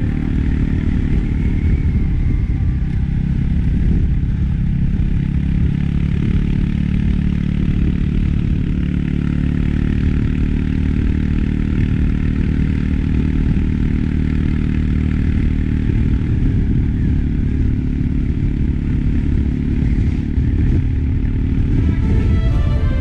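Yamaha XMAX scooter's single-cylinder Blue Core engine running steadily under way, mixed with wind and road noise.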